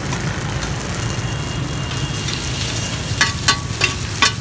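Food sizzling steadily in hot oil on a street-cart frying pan, with a few sharp clicks near the end.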